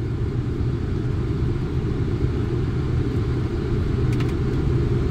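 Steady low rumble of a Boeing 747-400 flight deck on short final approach: airflow and engine noise with a steady low hum running under it.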